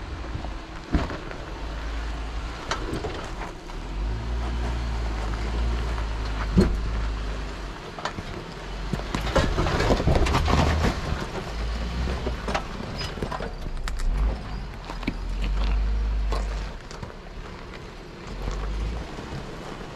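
A Jeep crawling over a rocky trail: the engine runs low, swelling and easing with the throttle, while the tyres crunch and knock over rock and gravel. The crunching is thickest about halfway through.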